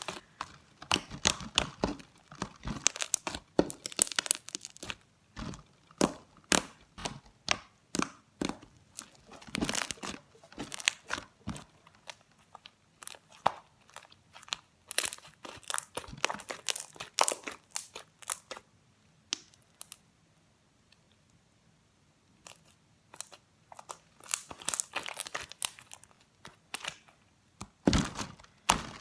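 Homemade slime being squeezed, kneaded and stretched by hand, giving dense runs of wet crackles and pops, with a pause of a couple of seconds past the middle.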